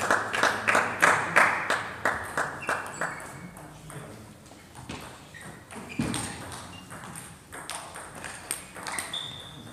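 Applause and clapping tapering off over the first three seconds or so, then scattered sharp clicks of table tennis balls and a few brief high squeaks in a reverberant sports hall, with one thump about six seconds in.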